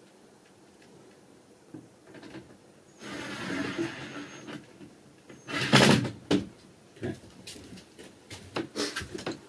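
Handling noise from work on a cupboard: a short scraping slide about three seconds in, then a couple of loud knocks, followed by a scatter of lighter taps and clicks.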